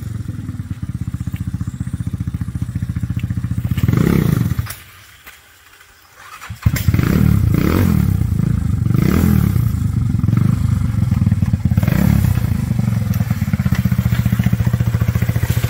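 Off-road go-kart engine revving hard under load as the kart climbs a slippery, muddy trail. It goes quiet for about two seconds near the middle, then comes back suddenly and loud, with repeated surges of revving.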